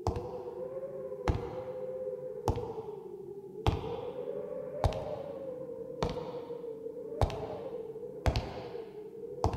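Eerie background music: a single sharp thud repeating evenly a little over a second apart, each ringing out, under a wavering sustained drone tone.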